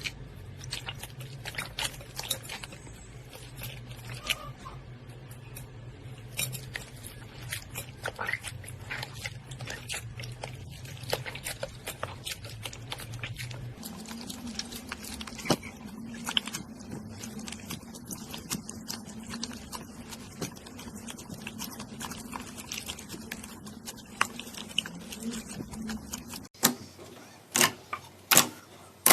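Slime being squished and pressed by hand, a run of many small sticky, wet clicks and pops. Near the end the sound cuts to a new clip with fewer, louder pops.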